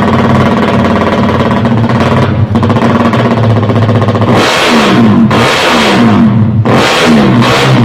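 Motorcycle engine with an open racing exhaust running at a steady fast idle, then revved in three sharp throttle blips about a second apart in the second half.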